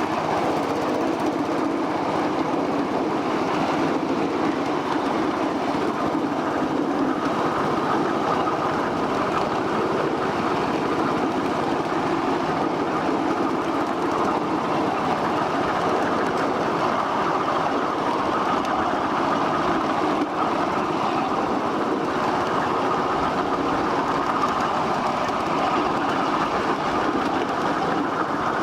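Ride-on 1/8-scale miniature train running steadily along its track, a continuous mix of locomotive and wheel-on-rail noise.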